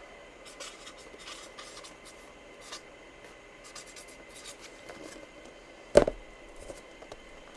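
Faint rustling, rubbing and scratching of hands handling items on a table, with one sharp knock about six seconds in.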